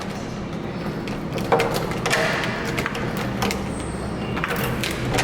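Restaurant dining-room background: irregular knocks and clatter of dishes and utensils over a steady room hum, with brief snatches of distant voices.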